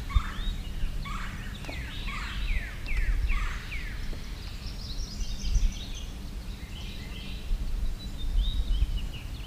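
A bird calling: a quick run of about five down-slurred whistles in the first few seconds, then fainter, higher twittering notes, over a low steady rumble.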